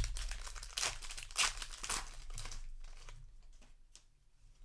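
A foil booster pack wrapper being torn open and crinkled by hand, busiest in the first three seconds and quieter after.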